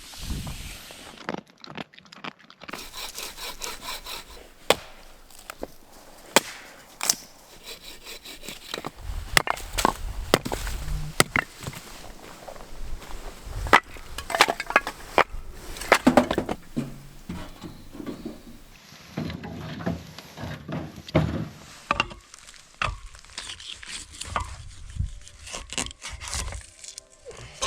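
Firewood being cut and split: an irregular series of sharp wooden knocks and cracks.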